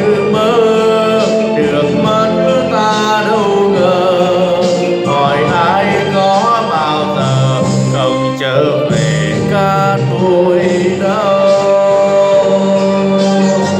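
A man singing a slow Vietnamese song into a handheld karaoke microphone over a backing track.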